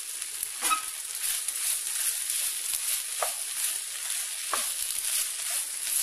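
Soya chunks, cauliflower, carrot and onion sizzling in oil in a frying pan while being stirred with a wooden spatula, a steady hiss with a few louder strokes as the spatula pushes through the pan.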